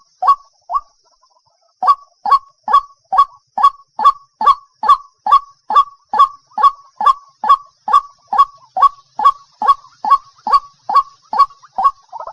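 Waterhen calling: a long run of loud, identical calls, about two a second, with a brief pause about a second in.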